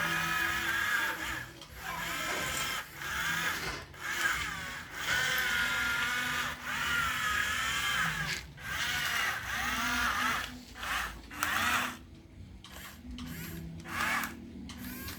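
Small electric motors and gearboxes of a radio-controlled construction model whining in short stop-start bursts, the pitch bending up and down as the motors speed up and slow down. The bursts thin out and get quieter near the end.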